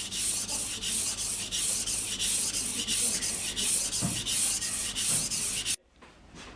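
Steel kitchen knife blade stroked back and forth on a wet Japanese water stone, held by a clip-on guide rail: quick, even strokes, about five a second, that stop suddenly near the end. The unchanging sound from stroke to stroke is the sign of a steady sharpening angle.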